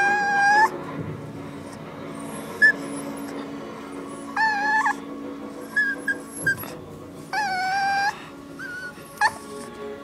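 Puppy whining and crying: a string of high-pitched whines, each under a second long, separated by pauses, with a few short squeaks between them.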